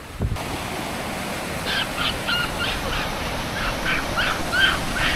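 Japanese macaques (snow monkeys) calling: a run of short, high, squeaky calls with bending pitch, several a second, starting about two seconds in, over a steady rushing background.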